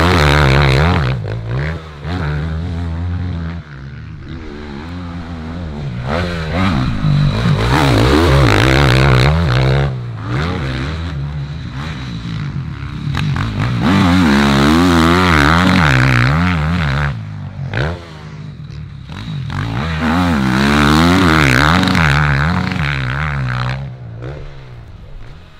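Motocross bikes on a dirt track, engines revving up and dropping off as the riders work the throttle. The sound grows loud and fades about four times as bikes pass.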